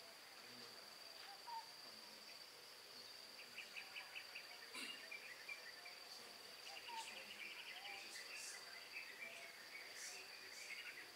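Faint insects chirping: a steady high thin trill, with bursts of rapid pulsed chirps about a third of the way in and again past the middle, over a hushed room with faint murmuring.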